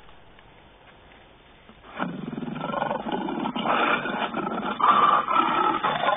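Recorded lion growls and snarls played back through a loudspeaker, starting suddenly about two seconds in after faint hiss and going on in loud pulsing waves.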